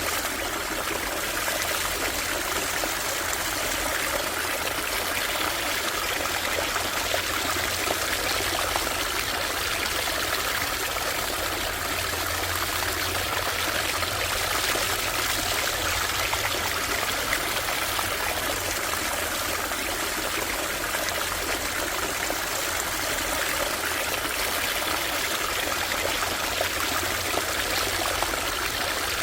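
A small creek running steadily, a continuous trickling rush of water.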